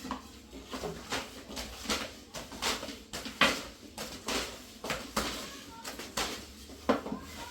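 A run of irregular knocks and taps, roughly two a second, the loudest near the middle.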